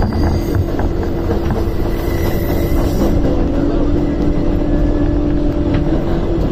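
New York City 7 line subway train running along the track, heard from inside the car: a steady low rumble with a steady hum and a few faint clicks of the wheels.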